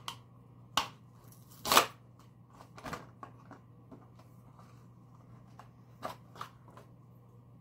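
Stiff plastic blister packaging of a dog toothbrush kit crackling and clicking as it is pried open by hand, in scattered sharp cracks, the loudest about two seconds in.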